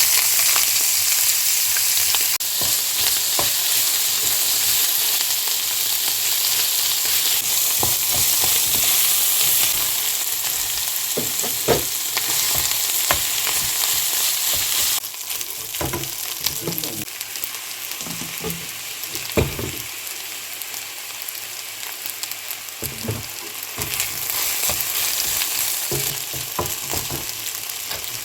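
Spam, kimchi and chopped vegetables sizzling in a hot frying pan while being stirred, with scattered short knocks and scrapes of the utensil against the pan. The sizzle is loudest at first and drops to a quieter level about halfway through.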